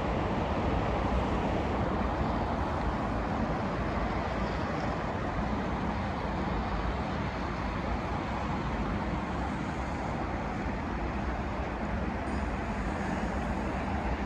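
Steady hum of highway traffic: tyre and engine noise from cars on the road, even throughout with no single car standing out.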